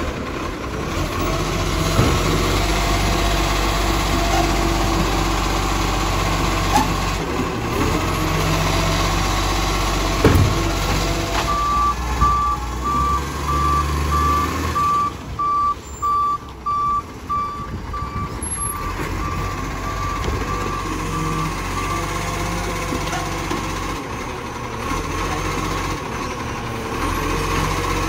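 Side-loader garbage truck's diesel engine running while its automated arm works the bins. About eleven seconds in, a warning beeper starts, giving a steady series of short beeps for about ten seconds, then stops.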